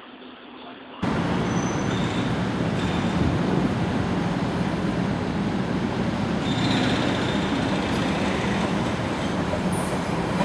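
Vienna U-Bahn train running on the track, a steady rumble and rolling wheel noise that starts suddenly about a second in. A few faint, brief high squeals from the wheels ride over it.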